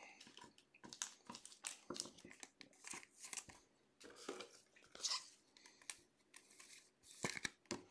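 Faint rustling and light clicks of glossy football trading cards being handled and slid off a stack, with a louder flick of cards near the end.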